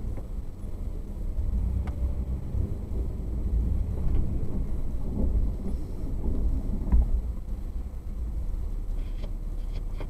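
Vehicle driving slowly on a rough, partly snow-covered dirt road, heard from inside the cabin: a steady low rumble of engine and tyres, with a few sharp knocks and rattles as it jolts over bumps, several of them near the end.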